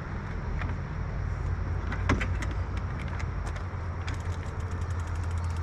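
Mountain bike in motion on a trail: a steady low rumble of tyres and air on the microphone, with scattered clicks and rattles from the bike, and a fast even run of ticks in the last second or so.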